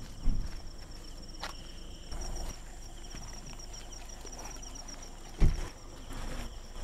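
An insect chirping in rapid, evenly spaced high-pitched pulses, with two dull thumps, one just after the start and another about five seconds later.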